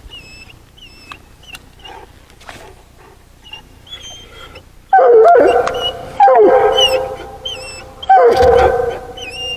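Coonhound baying: three loud, drawn-out howls in a row, beginning about halfway through, each sliding at its start and then held.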